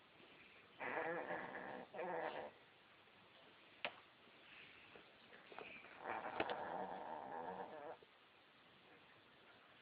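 Puppy snoring in its sleep: a snore about a second in that breaks into two parts, then a longer snore of about two seconds starting about six seconds in, with a faint click between them.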